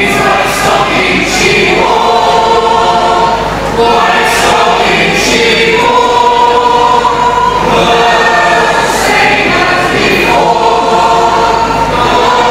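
A choir singing a slow song in long held notes, phrase after phrase.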